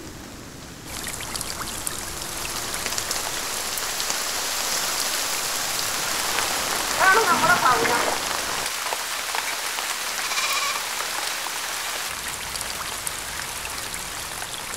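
Rain falling steadily in an even hiss that begins about a second in. About seven seconds in, a brief wavering call rises over the rain.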